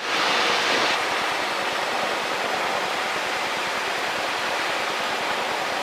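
Steady cockpit noise of a Cessna 152 on final approach with the power still on: engine and airflow heard as an even hiss, a little louder for about the first second.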